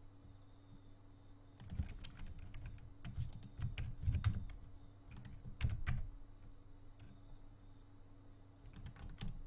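Computer keyboard and mouse clicks, coming in small clusters of two or three a few times, over a faint steady hum.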